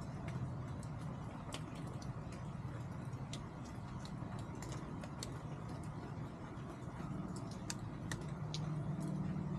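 Chickens pecking and scratching for feed: irregular sharp ticks scattered throughout, over a steady low hum that grows a little louder near the end.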